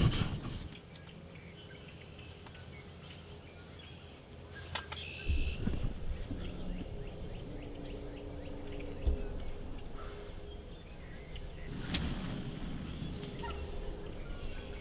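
Merriam's wild turkey gobbling, twice: about five seconds in and again about twelve seconds in.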